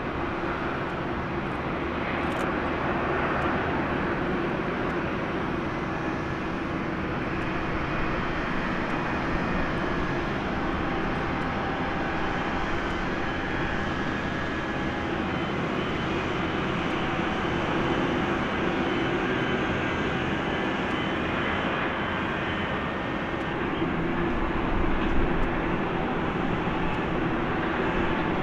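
Boeing 747-8's four GEnx jet engines running at idle as the airliner taxis: a steady rush with a few held tones, briefly louder near the end.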